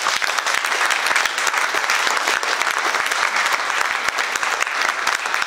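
An audience applauding: many people clapping steadily together.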